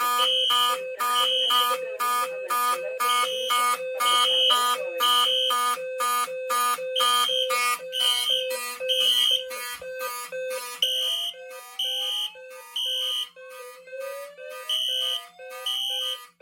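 Fire alarm system in alarm, set off by a heat detector: several notification appliances sound together in rapid pulses. A high tone sounds in groups of three (the temporal-three evacuation pattern), and a low tone comes from a B200S-LF low-frequency sounder base.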